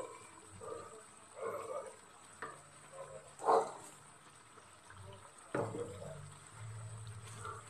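A wooden spatula stirs thick chicken curry in an aluminium wok while the sauce simmers: soft wet scraping and squelching with a couple of sharp knocks against the pan. The loudest stir comes about three and a half seconds in.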